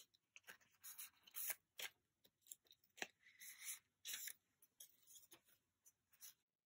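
Photocards and clear plastic sleeves handled and slid into binder pocket pages: faint, quick plastic rustles and scrapes with a few light clicks, stopping near the end.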